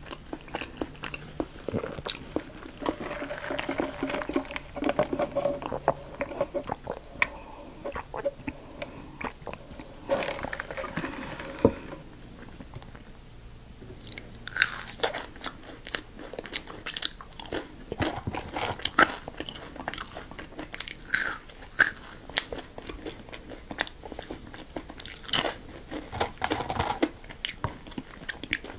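Close-miked eating sounds: repeated biting and chewing of fast food, with many sharp mouth clicks. The louder bites come in the second half.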